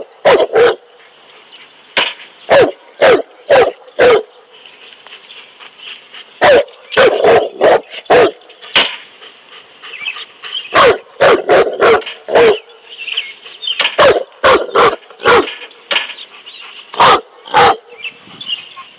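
Cane Corso barking at a snake: loud, deep barks in runs of three to six, about two a second, with pauses of a second or two between runs.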